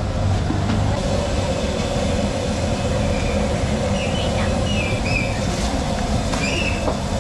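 Steady street noise dominated by a running engine's hum, with a few short high chirps about four to six and a half seconds in.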